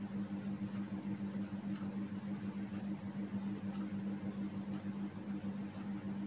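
A steady low electrical hum with a faint high tick-tone repeating about once a second, over light taps and scrapes of a marker drawing on a whiteboard.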